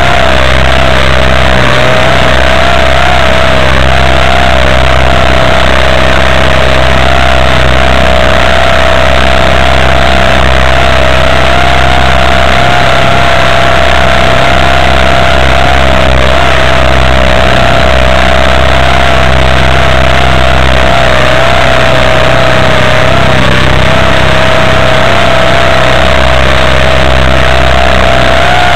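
RC model helicopter's motor and rotor running steadily, heard very loud and close from a camera mounted on the helicopter: a constant high whine that wavers slightly in pitch, over a rushing noise.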